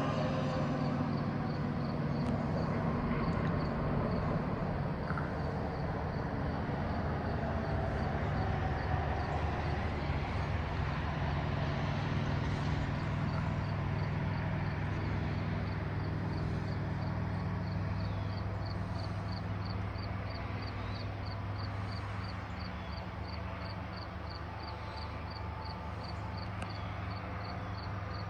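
Distant low rumble, slowly fading, with an insect chirping steadily at about three pulses a second, clearest in the second half. A distant wailing tone dies away in the first second.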